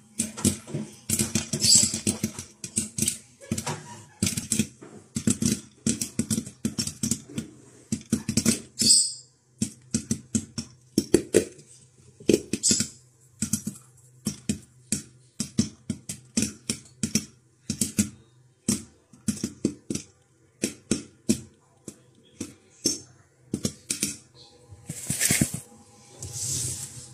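Corn kernels popping in hot oil in a covered pan: an irregular run of sharp pops, several a second.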